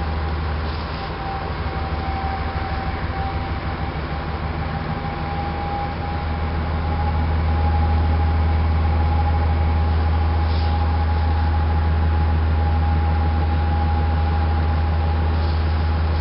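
Boat engine running steadily, heard from on board: a low drone with a steady whine above it, over a rush of wind and water. It grows louder about seven seconds in.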